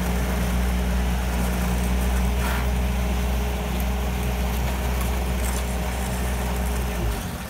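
Bobcat compact track loader's diesel engine running steadily with a low hum; its sound drops off about seven seconds in.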